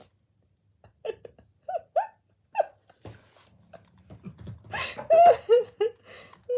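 Sony Aibo ERS-1000 robotic dog making its synthesized puppy vocalizations: a few short rising chirps, then a louder run of warbling calls that bend up and down in pitch near the end.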